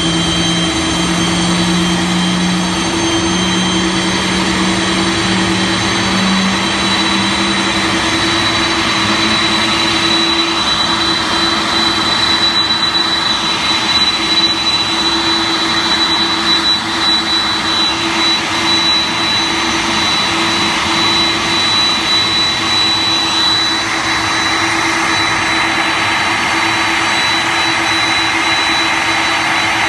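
Boeing 747-400's jet engines running at taxi power as the airliner taxis close by: a steady, loud jet noise with a constant high whine over it.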